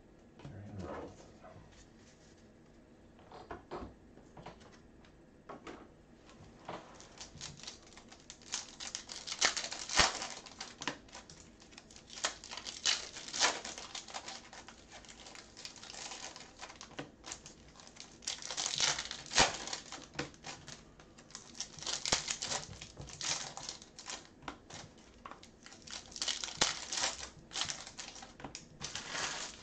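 Plastic foil trading-card pack wrappers being torn open and crinkled by hand. The crinkling comes in repeated bursts every few seconds, starting after a quieter stretch of several seconds.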